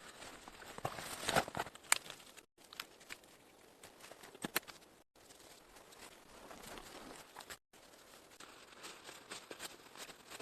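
Rustling and crinkling with scattered sharp clicks and snaps, the loudest about a second and a half in, broken by brief dead-silent cuts about every two and a half seconds.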